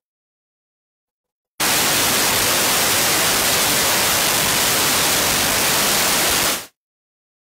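Loud, steady static hiss that starts abruptly about a second and a half in and cuts off just as abruptly about five seconds later, with dead silence on either side: an electronic noise burst in the audio signal.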